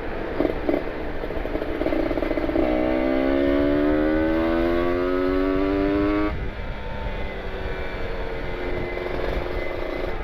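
Kawasaki Ninja RR 150's two-stroke single with an R9 carbon aftermarket exhaust, pulling up through a gear with a steadily rising note for about four seconds. About six seconds in the throttle is shut suddenly and the engine drops back to low revs.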